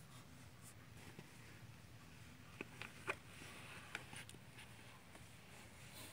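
Near silence broken by a few faint clicks and scratchy rustles, clustered from about two and a half to four seconds in, as a small dog paws and mouths a plush popcorn toy.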